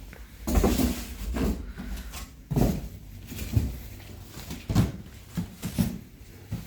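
Several separate bumps and knocks of a microwave oven being handled and set in place, the loudest about half a second in.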